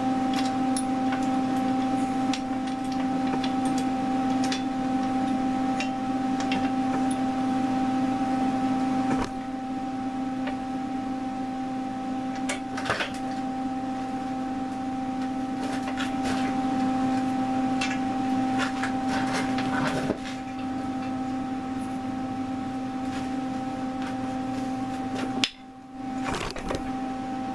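Steady machine hum with scattered clicks and knocks through it. The hum cuts out briefly near the end.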